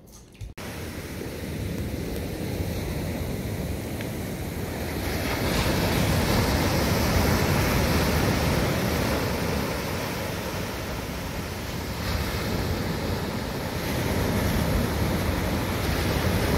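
Ocean surf rushing steadily on a rough, windy beach, with wind on the microphone. It starts suddenly about half a second in and swells louder about five seconds in and again near the end.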